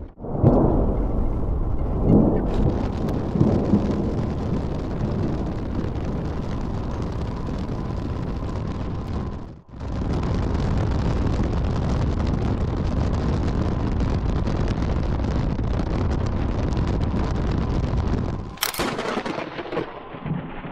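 Thunder: deep rumbling with several loud cracks in the first few seconds, then a long steady rushing of storm noise, briefly cut off about halfway through. Near the end comes one more sharp crack, and it goes quieter.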